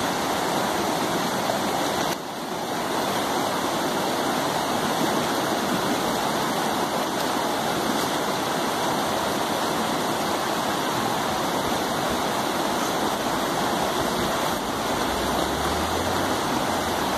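Shallow rocky river rushing steadily over stones and small rapids. The sound dips briefly about two seconds in.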